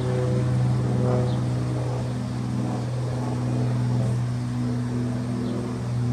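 GE ET44AC diesel-electric locomotive's 12-cylinder GEVO engine running under power as the train approaches, a steady low drone with a constant hum underneath.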